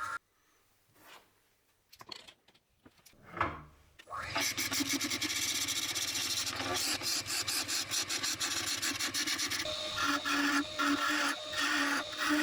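A few faint knocks, then a brief rising whir, then from about four seconds in a turning tool scraping the wood spinning on a lathe: a steady, rough rasping. A low motor hum joins it near the end.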